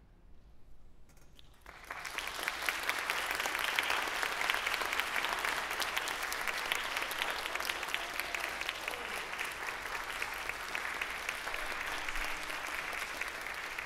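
After about two seconds of quiet, an audience breaks into applause that holds steady, a dense crackle of many hands clapping.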